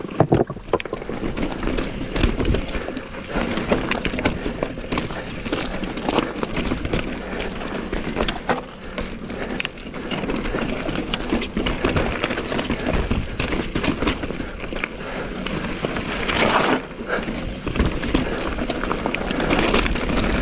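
Mountain bike riding down a rocky trail: tyres rolling and crunching over rock and loose stones, with frequent clicks and knocks throughout.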